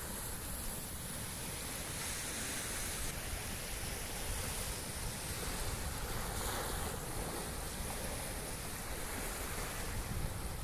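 Small surf washing steadily along a sandy shore, with wind on the microphone.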